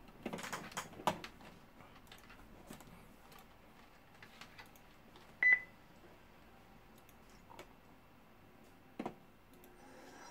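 Rustling and light clicks from a hand moving over papers near the start, then a single short, high electronic beep about five and a half seconds in, the loudest sound, and a brief knock near nine seconds.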